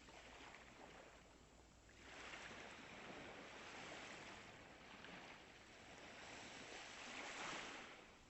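Ocean surf washing in and out, the noise of the waves swelling about two seconds in and again, loudest, near the end before ebbing away.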